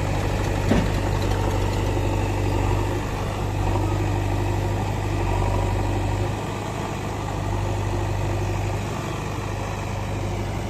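Heavy diesel machinery engine running steadily, a deep even hum with one brief click about a second in.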